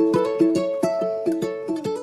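Background music: a quick tune of plucked string notes, about four a second, getting gradually quieter.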